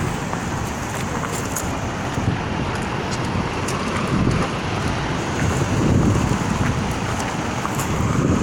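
Floodwater rushing out through open dam flood gates in a steady, heavy roar, with wind buffeting the microphone.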